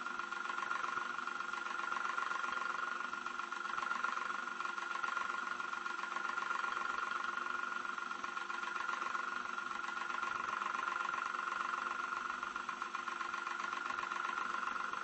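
Old electric fan running steadily, heard from a medium distance: an even whirring hum with a fine, rapid pulsing and no change in speed.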